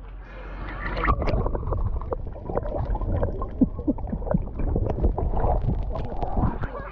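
Water heard underwater: a muffled low rumble with scattered gurgles, bubbles and small clicks, with nothing above the middle range.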